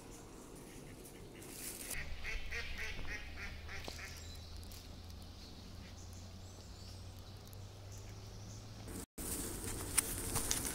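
Ducks quacking in a quick run of calls about two seconds in, lasting a couple of seconds. After a cut near the end, footsteps and rustling in grass.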